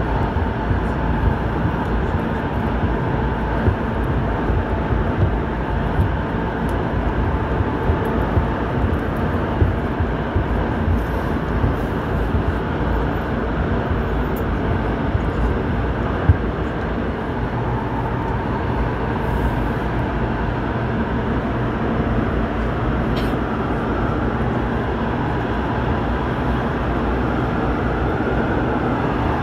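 Airport Railroad all-stop commuter train running steadily, with a continuous rumble of wheels on rail and a faint whine from the traction motors.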